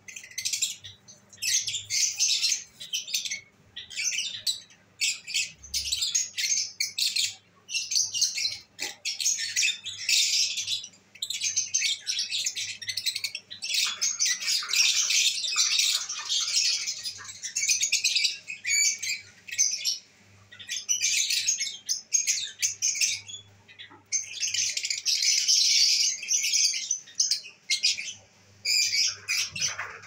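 Lovebirds chattering: rapid, high-pitched chirps and squawks in near-continuous bursts with brief pauses.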